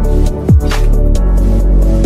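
Electronic background music with sustained deep bass. About half a second in, a heavy bass kick sweeps sharply down in pitch.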